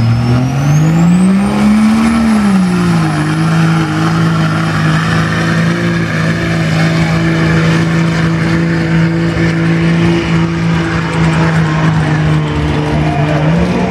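Cummins turbo-diesel engine of a Dodge Ram pickup pulling a weight sled under full load. The engine note climbs in the first two seconds with a high whistle rising alongside, drops back about three seconds in and holds steady as the truck drags the sled, then rises again near the end.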